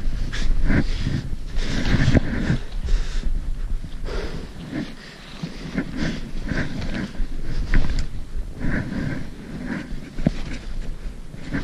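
Footsteps crunching through snow and trekking poles planting, in irregular bursts, with a hiker breathing hard.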